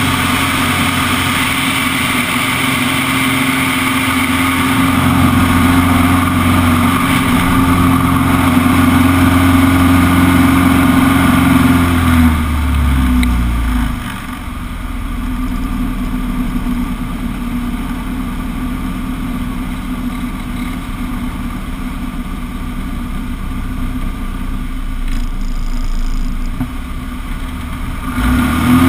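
Extra 200 aerobatic plane's four-cylinder Lycoming engine and propeller heard from the cockpit during a loop: a loud, steady engine note for about the first twelve seconds, then dropping to a quieter, lower note, and picking up again near the end.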